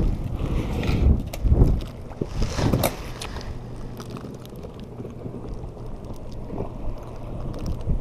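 Wind buffeting the microphone in gusts, strongest in the first three seconds and then easing to a steady rush, with small rustles and clicks of hands handling a plastic soft-bait packet.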